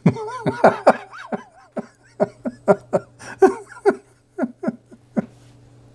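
Laughing in a string of short bursts, more continuous and wavering for the first second, then spaced out and tapering off.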